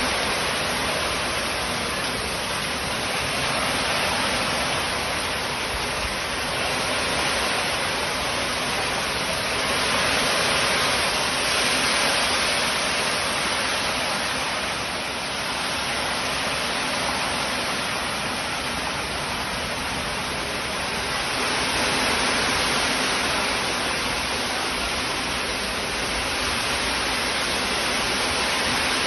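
Rain falling steadily, an even hiss that swells and eases a little every few seconds.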